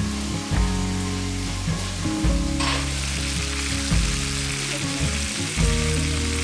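Tofu and tomatoes sizzling as they fry in a pan on a gas stove, the sizzle growing louder about two and a half seconds in. Background music with a low bass line changes notes under it every second and a half or so.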